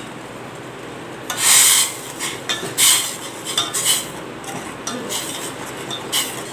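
Steel ladle stirring sugar and water in a stainless steel pot, scraping and clinking against the pot in irregular strokes that start about a second in. The sugar is being dissolved in the water to make a syrup.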